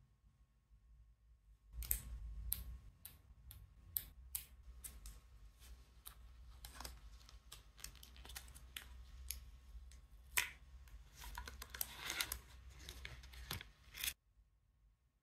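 Clear plastic protective cover being pried and peeled off a smartwatch by hands in nitrile gloves: a run of sharp plastic clicks and snaps, one loud snap about two-thirds of the way through, then dense crinkling that stops abruptly near the end.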